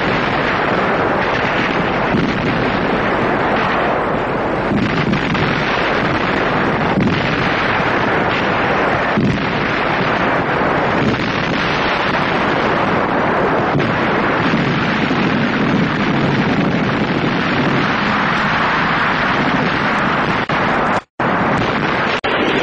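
Continuous battle noise of explosions and gunfire: a loud, steady wash of noise with occasional sharper cracks. It drops out to silence briefly near the end.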